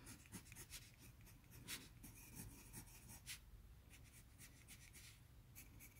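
Faint scratching of a colored pencil drawing short strokes on Doosung Inuiyeji Gureum 120 g paper, a textured, bumpy hanji made for printing.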